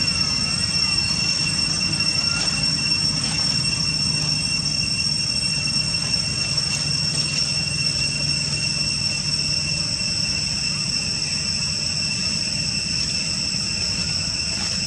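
Steady high-pitched drone of an insect chorus, several unchanging whining tones at once, with a low hum underneath.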